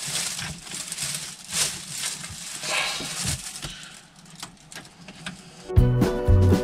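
Small clicks and scrapes of a hand screwdriver driving T25 screws back into a Volvo V70's plastic dashboard trim, with light rustling. Near the end, music starts suddenly and is louder than the work sounds.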